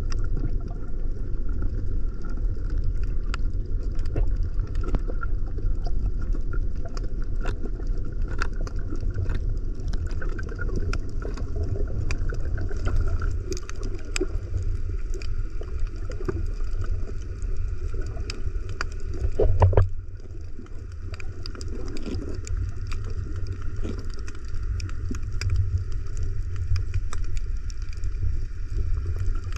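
Muffled underwater sound picked up by a camera in a waterproof housing: a steady low rumble of water with scattered clicks and crackles. About two-thirds through, the noise swells louder for a moment, then settles a little quieter.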